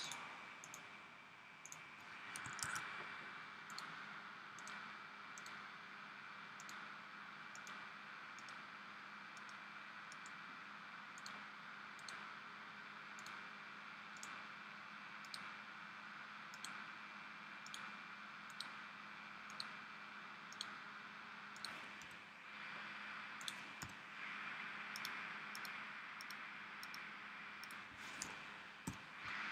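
Irregular, faint clicks of a computer pointing device's button, roughly one a second, as shapes are filled one click at a time. Under them runs a faint steady hiss.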